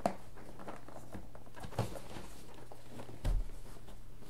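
Cardboard packaging being handled and opened: a few light knocks and taps, with a dull thump a little over three seconds in, over a steady low hum.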